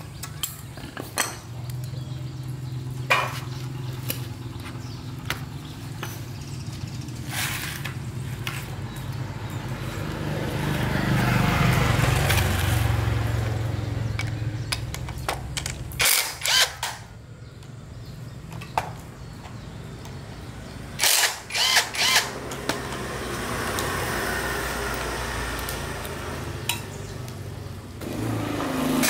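A small motor running steadily with a low hum, swelling louder for a few seconds in the middle, with several sharp metallic clicks and knocks, twice in quick clusters.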